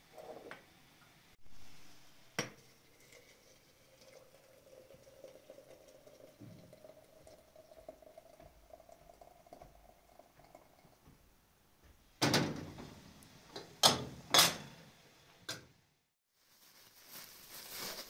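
Hot water poured from an aluminium kettle into a porcelain teapot, its faint tone rising slowly as the pot fills. About twelve seconds in come several loud clanks of metal and china, the kettle and teapot being handled and set down.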